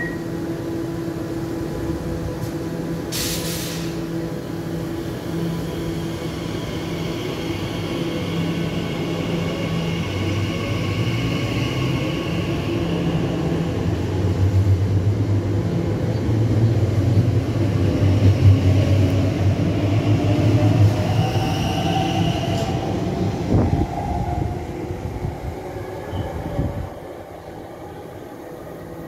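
Elizabeth line Class 345 electric train pulling out of the platform. It starts with a steady electrical hum and a short hiss about three seconds in, then a low wheel rumble and a rising motor whine build as it accelerates away. The sound drops off abruptly near the end.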